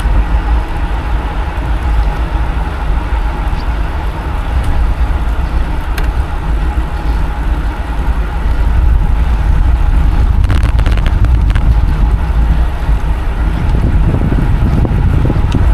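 Steady rush of wind and road noise from riding a road bicycle at speed, getting louder about halfway through, with a few quick clicks shortly after.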